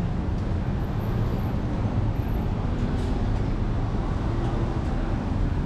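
Busy city street ambience: a steady rumble of motor traffic.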